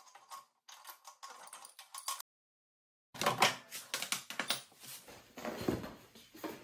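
Quick runs of metal clicking from a wrench working the seat-belt mounting bolt on the go-kart frame. After a short gap come irregular clicks and knocks of loose metal belt hardware being handled.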